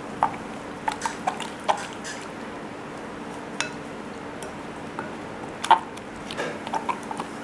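A spoon stirring a thick spice marinade paste in a glass bowl: wet squishing with scattered light clicks of the spoon against the glass. A faint steady hum sits underneath.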